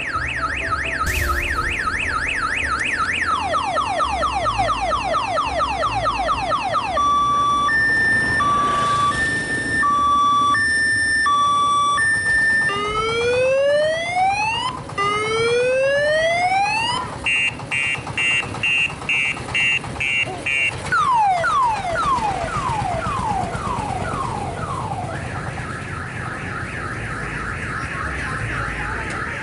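Loud multi-tone electronic siren horn of the kind fitted to odong-odong tour trains, cycling through its patterns: a fast warble, repeated falling sweeps, a two-note beeping, rising whoops, a quick pulsing chirp, more falling sweeps, and a warble again near the end.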